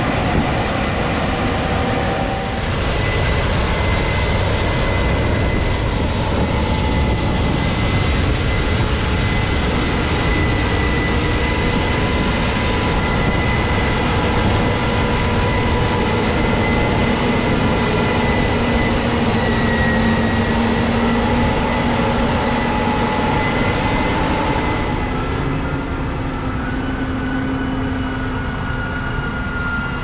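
Case IH 8250 combines running as they harvest wheat: a dense, steady machine noise with several steady whines over it. About 25 seconds in, the sound drops a little and the whines change pitch.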